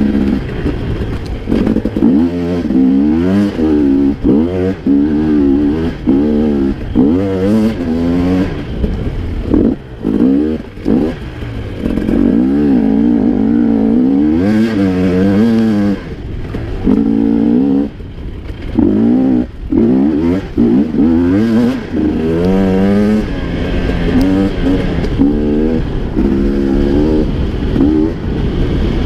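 Off-road dirt bike engine being ridden hard, its pitch climbing and dropping again and again as the throttle is opened and closed, with knocks and clatter from the bike over the bumps.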